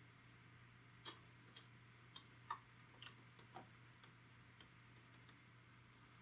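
Faint, scattered small clicks and taps, about eight over a few seconds, from the parts and tools of an iPod Touch being handled and fitted back together, over a low steady hum.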